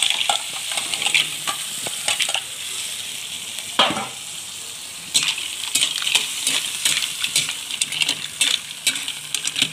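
Mussels in their shells sizzling in a wok with garlic and onion while a metal ladle stirs and scrapes them against the pan. There is a sharp knock about four seconds in, and the stirring is quieter for a second or two around it.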